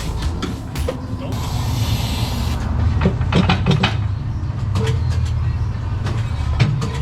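Tire-shop work: a burst of compressed-air hiss about a second in, then sharp clicks and knocks of tools and machinery over a steady low machine hum.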